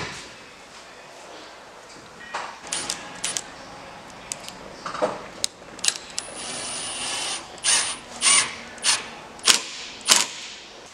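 Cordless drill driving screws through a fiberglass boat's deck cap into the hull along the gunwale: scattered clicks and knocks, then the drill motor running steadily for about a second and a half, followed by five short spurts about half a second apart near the end.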